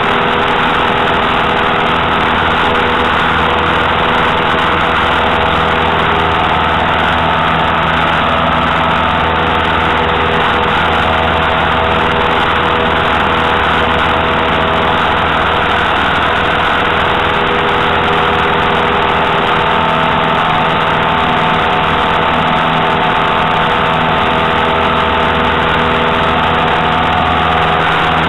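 Light single-engine tow plane's piston engine running steadily under load while towing a glider, heard from on board over a constant rush of airflow.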